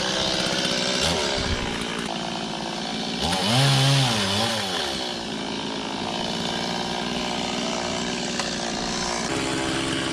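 Chainsaw engine running steadily. About three seconds in it gets louder, and its pitch rises and falls for a second or two before settling back.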